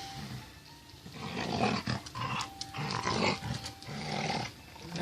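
A small dog growling in about four short, rough bursts, the first about a second in.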